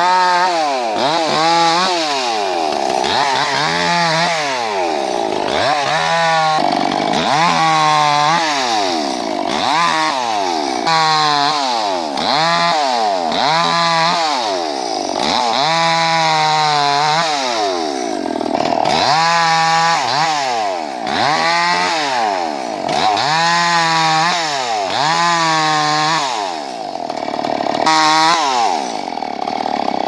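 Two-stroke petrol chainsaw cutting through tree limbs, its engine revving up and dropping back over and over, about every one and a half to two seconds.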